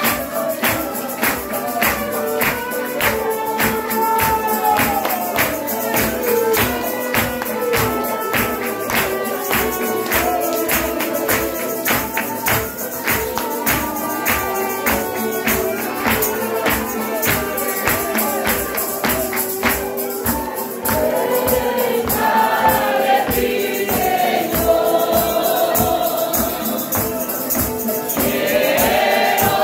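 Group singing a Christian hymn in Spanish-speaking worship style over live music, with percussion keeping a quick, steady beat.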